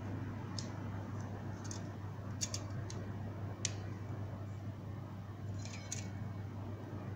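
Handling noise from a plastic action figure and a metal tape measure: a few light clicks and ticks scattered through, the sharpest a little past the middle, over a steady low hum.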